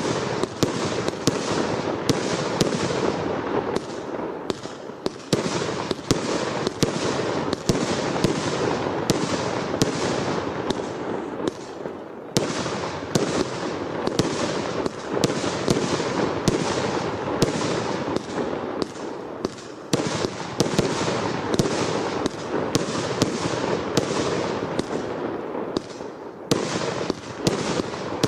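Brothers Pyrotechnics RS3 firework going off continuously: a steady rushing hiss, with sharp bangs about twice a second throughout.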